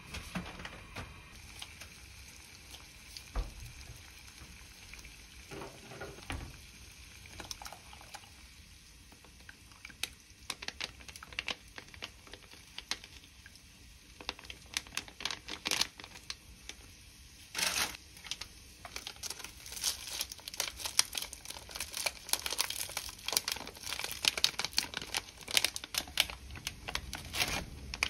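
Thin plastic food packets crinkling and tearing as they are opened and squeezed out over a pot of simmering broth. The crackling grows thicker and sharper through the second half.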